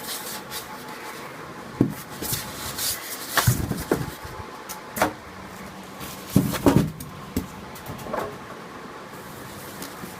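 Packaging and parts of a home theatre system being handled during unboxing: a series of irregular knocks and thumps, with light rustling in between.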